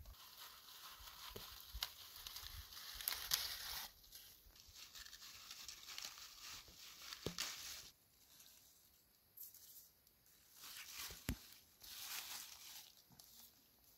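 Leaf lettuce being picked by hand: leaves rustling in irregular bursts, with a few sharp snaps as stems break.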